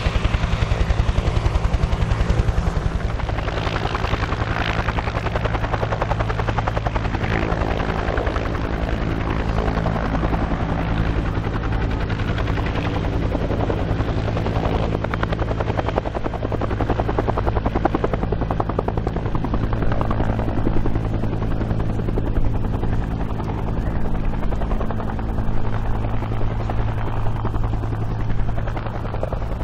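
Bell UH-1 Huey helicopter with a two-blade main rotor running steadily, lifting off the ground into a low hover.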